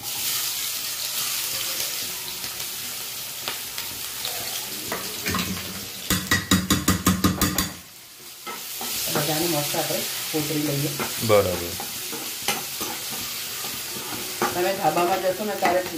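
Sliced onion sizzling in hot oil with a mustard-seed, dried red chilli and curry-leaf tempering in a kadai, stirred with a spatula. About six seconds in, a quick run of spatula strokes rattles against the pan for a second or two, then the sizzle goes on.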